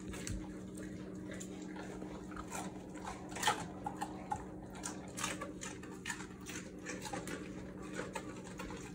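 A dog chewing and licking up bits of roasted vegetable from a tile floor: scattered wet smacks and clicks, irregular throughout, over a steady low hum.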